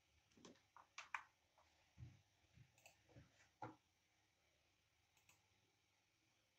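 Faint, scattered clicks of a computer mouse and keyboard, about eight in the first four seconds.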